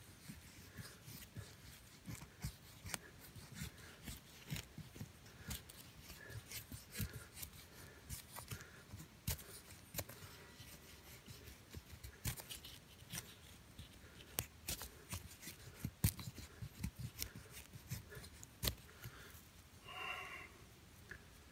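Small knife blade shaving and scraping a split wooden stick in irregular short strokes: faint scrapes and sharp little clicks. A brief pitched sound near the end.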